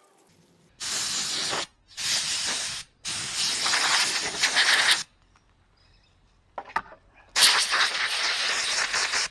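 80-grit sandpaper rubbed by hand over the hardened, cracked outer layer of a Nissan 300ZX axle's rubber CV joint boot, in four sanding bursts of about one to two seconds each. A few light clicks fall between the third and fourth bursts.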